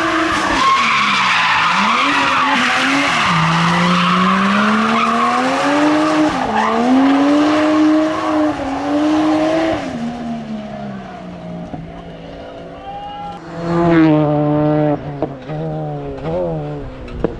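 Race car engine revving hard, its pitch climbing and dropping through gear changes for about ten seconds over tyre squeal, then fading. Near the end comes a burst of quick rev changes.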